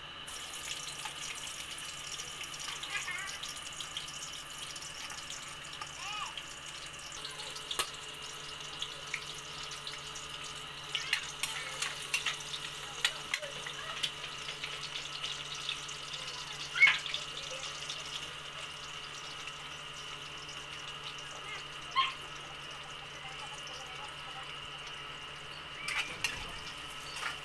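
Garlic cloves frying in hot oil in a frying pan: a steady sizzle, with sharp clicks of a metal spatula against the pan as it is stirred.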